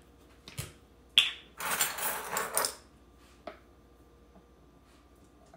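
Plastic screw cap being twisted off a bottle of olive oil: a few clicks and one sharp snap, then about a second of scratchy rustling, and a single small tap near the middle as the cap is set down on the counter. After that, only faint room noise while the oil is poured.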